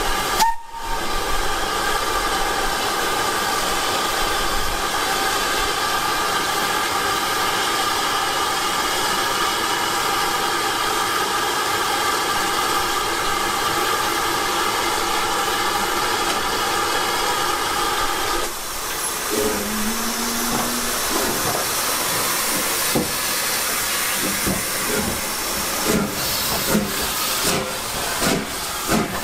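Steam hissing steadily from Southern Railway S15 No. 506, a steam locomotive, with a ringing whistle-like tone in the hiss. About two-thirds of the way through it cuts to a softer hiss with scattered knocks, which come more often near the end.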